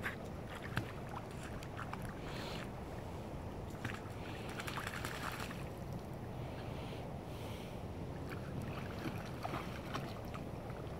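Australian Cattle Dog swimming, paddling and splashing softly in shallow pond water, in a few short bursts of splashing and small drips over a low, steady wind rumble on the microphone.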